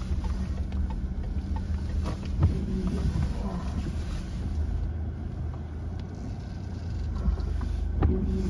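Subaru Outback driving, with a steady low engine and road rumble heard from inside the cabin and a few light knocks, one stronger about two and a half seconds in.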